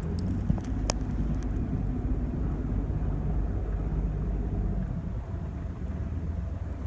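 A sailing yacht's inboard engine running steadily at low revs, a continuous low rumble, with a sharp click about a second in.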